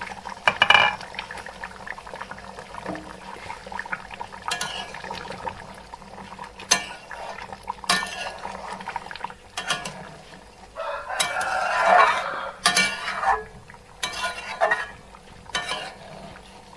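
A metal spatula stirring a simmering catfish curry in an aluminium kadai, knocking and scraping against the pan in irregular clinks. There is a loud clank about a second in, and the stirring is busiest about two-thirds of the way through.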